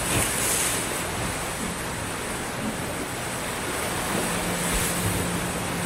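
Small sea waves breaking and washing up a sandy beach: a steady surf hiss that swells slightly at the start and again about four seconds in.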